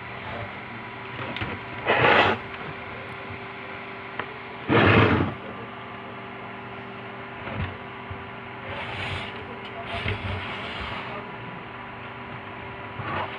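Steady electrical hum, broken twice by short, loud bursts of mechanical noise, about two seconds in and again about five seconds in, with fainter rustling and handling noises later.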